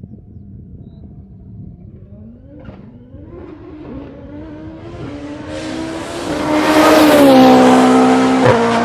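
Formula Atlantic race car with a turbocharged Toyota 4A-GE four-cylinder accelerating toward and past. The engine note climbs steadily in pitch and gets much louder, then drops in pitch as the car goes by about seven seconds in.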